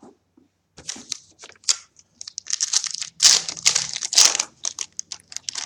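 A 2014 Topps Valor trading-card pack wrapper being torn open and handled. A run of rustles, loudest about three to four seconds in.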